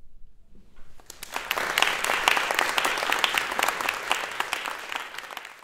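Audience applauding, starting about a second in and swelling quickly to a steady clatter of many hands clapping.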